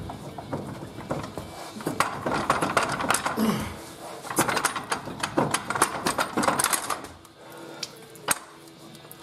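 Metal clunks, knocks and rattles as an NP231 transfer case is worked loose by hand on a transmission jack. The knocks come thick and fast for about seven seconds, then it goes quieter, with one sharp knock near the end.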